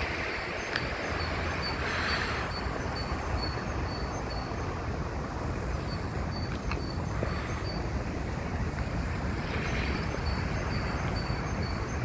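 Wind blowing, rumbling on the microphone, with gusts swelling about two seconds in and again near the end.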